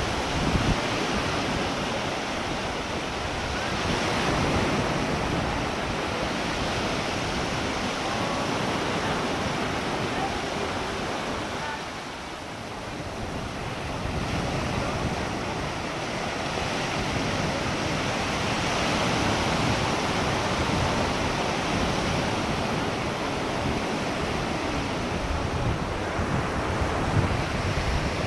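Ocean surf washing ashore, rising and falling every few seconds, with wind buffeting the microphone.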